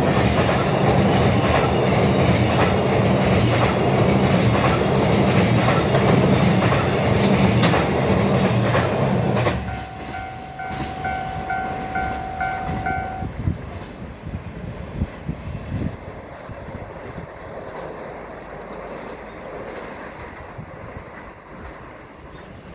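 Container flatcars of a JR Freight train rolling past close by, with loud rumble and clickety-clack of wheels over rail joints. The sound drops sharply about nine and a half seconds in as the last wagon passes, then fades as the train recedes, with a few distant clacks. A steady ringing tone with a pulsing higher note sounds for about three seconds just after the drop.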